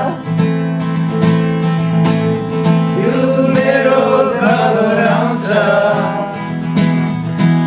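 Acoustic guitar strumming chords, with a man singing a Nepali song over it for part of the time.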